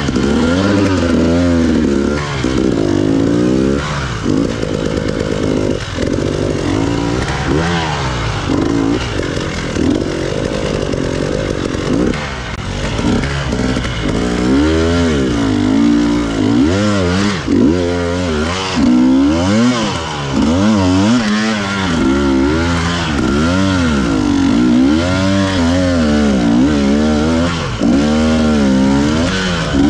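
Enduro motorcycle engine heard on board, revving up and down over and over as the throttle is opened and closed.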